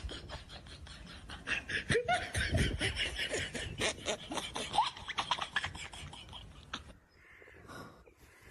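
A person laughing off camera in quick, breathy snickers, stopping about seven seconds in.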